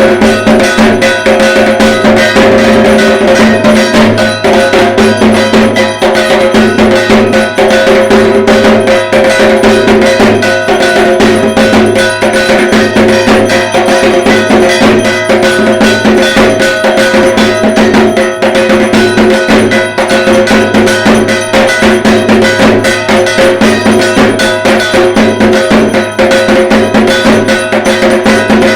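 Dhak, the Bengali barrel drum of Durga Puja, beaten in a fast, continuous rhythm, with a steady metallic ringing held over the strokes.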